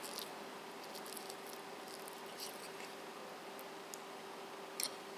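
Faint clicks and light scrapes of a metal fork against a ceramic plate as the fork's edge cuts through tender braised cube steak, with a slightly louder click near the end. A faint steady hum runs underneath.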